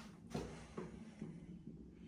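Soft footsteps on carpet, about two steps a second, over a faint steady hum.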